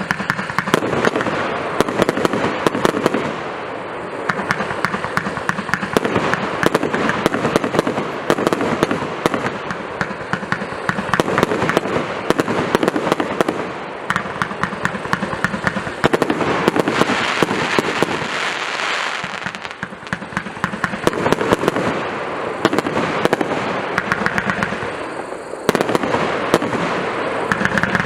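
A 180-shot fireworks battery of 1.2-inch tubes (OT 014 'Yantar') firing in rapid succession: a dense, continuous crackle of launches and bursts that swells and eases in waves every few seconds.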